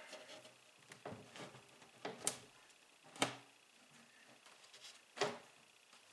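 A handful of sharp knocks and clunks, the loudest about two, three and five seconds in: sheet-goods cabinet parts and tools being handled and set down during a glue-up.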